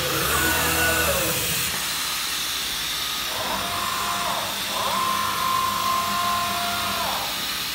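MultiCam 5000 Series CNC router's gantry drives whining through rapid moves over a steady machine hiss. A whine falls away in the first second, then twice more a whine rises, holds at a steady pitch and falls as the gantry speeds up, travels and slows.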